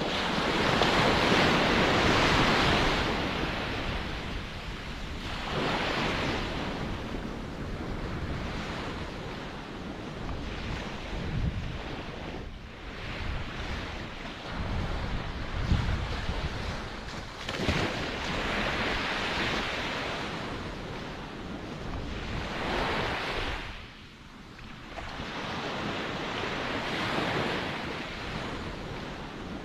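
Ocean waves washing in and drawing back, each surge swelling and fading over a few seconds, the largest in the first three seconds and smaller ones coming every four to six seconds after.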